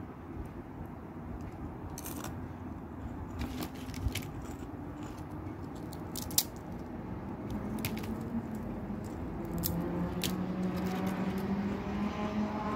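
Crispy batter-fried bitter gourd leaves crackling and crunching as they are picked up and handled by hand: scattered sharp clicks, the loudest about six seconds in. Under them a low steady engine hum grows louder in the second half.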